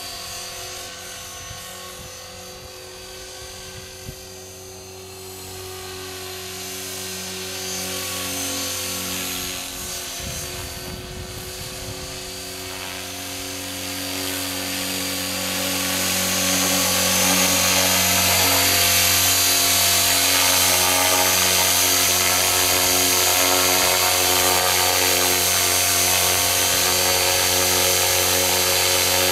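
Align T-Rex 500 DFC electric RC helicopter in flight: a steady whine from its motor and drive gears with the rush of the spinning rotor blades. It grows louder from about five seconds in until about sixteen seconds as it comes closer, then holds steady.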